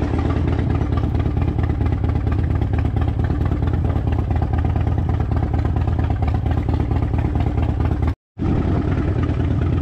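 Harley-Davidson Dyna Fat Bob's V-twin engine running steadily with a deep, uneven rumble, broken by a brief gap of silence about eight seconds in.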